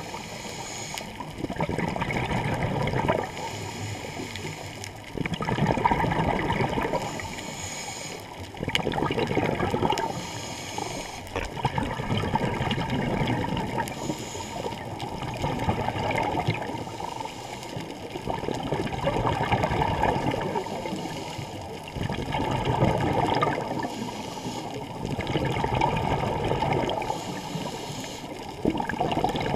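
Scuba diver breathing through a regulator underwater: exhaled bubbles gurgle in surges every few seconds, with quieter stretches between breaths.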